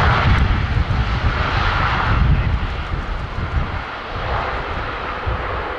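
Boeing 787-10 jet airliner's GE GEnx engines during the landing rollout: a loud, steady jet rush over a deep rumble, loudest in the first two seconds and easing a little after about three.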